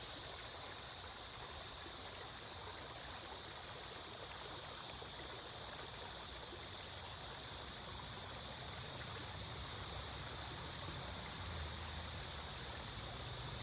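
Steady outdoor ambience: an even, unbroken hiss, strongest in the high range, of the kind made by flowing water or a chorus of insects.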